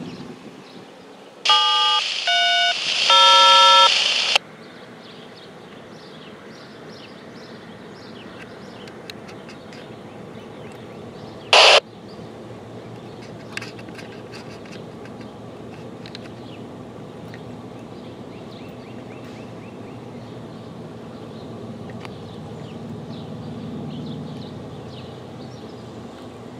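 Radio scanner giving a three-part electronic tone signal, steady beeps that change pitch between parts and last about three seconds. About halfway, one short, loud burst of noise. Otherwise a steady background hiss.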